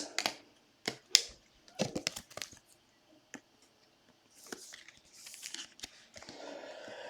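Trading cards and their foil pack wrapper being handled: a run of short papery snaps and crinkles in the first couple of seconds, then soft rustling near the end.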